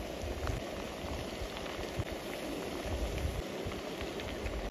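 Cured pork, sausage and wax gourd frying in oil in a pan over a camping gas stove: a steady crackling sizzle with fine pops, over an uneven low rumble.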